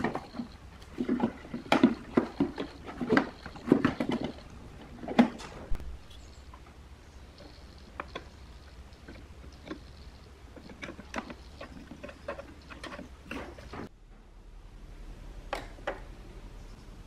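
Plastic subwoofer housing being handled and pressed onto its metal chassis: a quick run of plastic-on-metal knocks and clicks for the first few seconds, then scattered single clicks of the front-panel knob and push-buttons being worked, with two clicks near the end.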